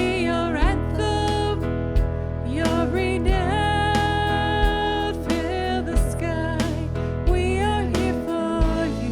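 Worship song: a lead singer over a band playing sustained chords, with a steady drum beat.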